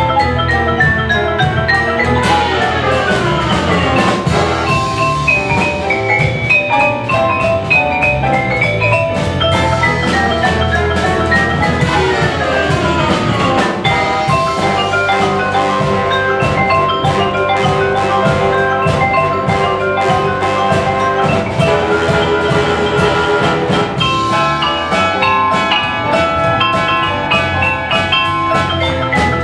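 A xylophone played by two people at once, with rapid struck notes and two long falling runs sweeping down the bars, one early and one about halfway through, over a big band holding sustained chords.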